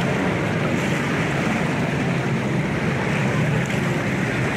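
Racing jet skis' engines droning steadily out on the water, with wind buffeting the microphone.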